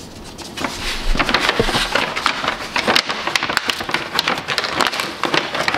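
Brown paper shipping bag crinkling and rustling in quick, irregular crackles as an English bulldog puppy pushes its head into it.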